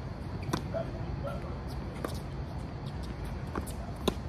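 Tennis balls struck by rackets in a doubles point: a serve about half a second in, then a few more sharp pops of shots through the rally, the loudest just before the end, over a steady low outdoor rumble.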